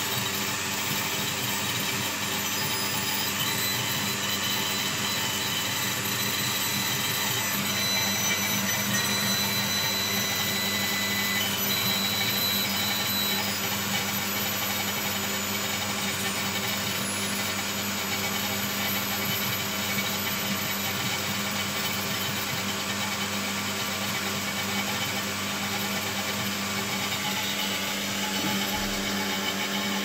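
Reactor cooling fan running with a steady whir and low hum. Faint high whistling tones come and go over it.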